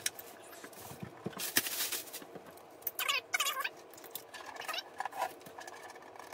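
Plastic wrap crinkling and packing tape being pulled off, with a short squealing rasp of the tape about three seconds in.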